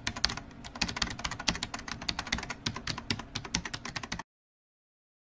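Keyboard-typing sound effect: a fast, irregular run of key clicks, several a second, that cuts off abruptly about four seconds in, followed by silence.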